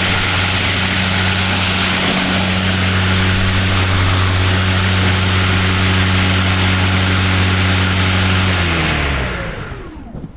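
EGO 800 Series 56 V battery lawn mower's electric motor and dual blades running at full speed: a steady hum over a broad rush of air. About eight and a half seconds in it is shut off, and the hum falls in pitch and fades as the blades spin down.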